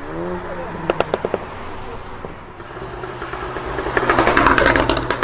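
Performance car engine revving, its pitch rising at the start, with a quick burst of sharp exhaust pops and crackles about a second in. The engine then runs on and revs louder near the end, where the pops start again.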